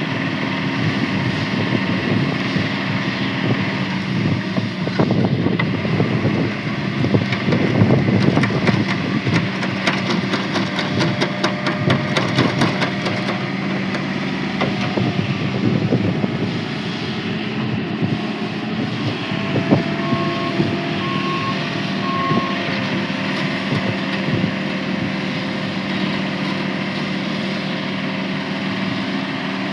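Self-loading concrete mixer's diesel engine running steadily, with rapid clattering for several seconds in the first half and three short reversing beeps about twenty seconds in.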